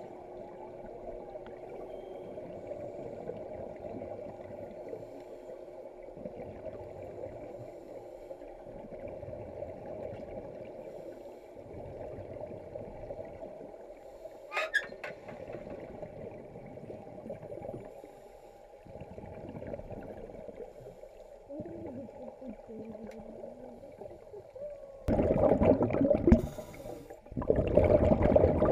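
Scuba regulator breathing heard underwater: a steady muffled underwater hum with the diver's exhaled bubbles, and two loud rushes of exhaust bubbles near the end.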